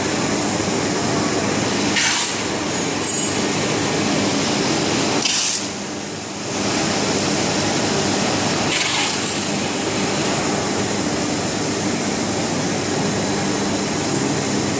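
Paper mill machinery running with a loud, steady rumble and hum. A few short hisses cut in over it, about two seconds apart at first.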